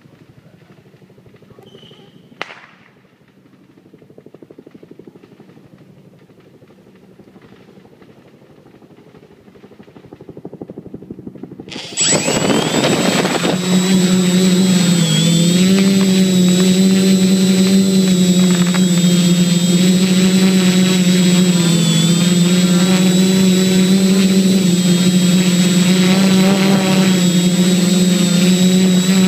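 Electric motors and propellers of a small remote-controlled aircraft, faint at first with a single click, then starting abruptly about twelve seconds in and running steadily at a loud, slightly wavering pitch with a high electric whine on top.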